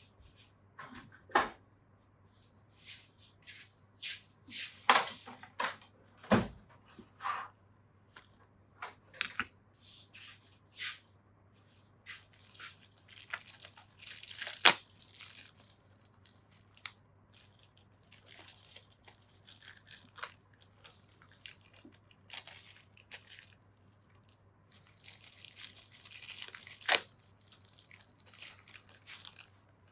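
Hands working with parts and tools, apparently fitting a motorcycle starter clutch to the back of its flywheel: scattered sharp clicks and knocks, with stretches of rustling and scraping, over a faint steady low hum.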